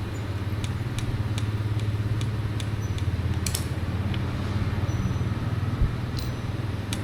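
Steady low motor hum, with scattered short sharp clicks and taps over it.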